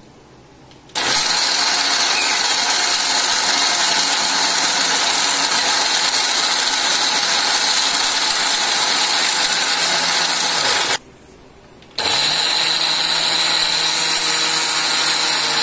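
Electric mixer grinder with a steel jar running at full speed, grinding jaggery together with powdered roasted rice and almonds. It starts about a second in, stops for about a second near the eleven-second mark, then runs again. A steady high whine sits over the grinding noise.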